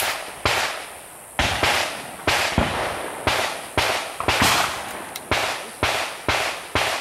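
Handgun shots fired in quick, uneven succession, about fifteen in seven seconds, each with a short echoing tail.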